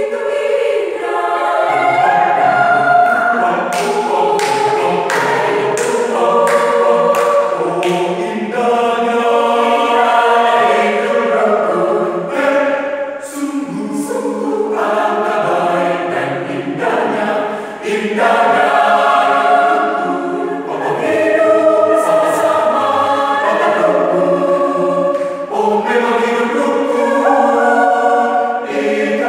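Mixed choir of men's and women's voices singing in parts.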